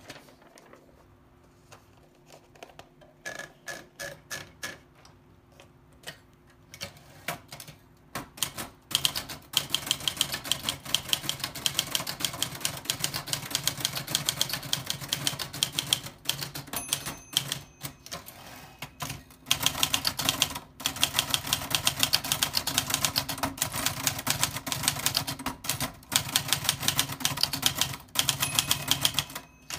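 Old typewriter being typed on: a few scattered keystrokes at first, then fast, continuous typing from about nine seconds in, with short pauses.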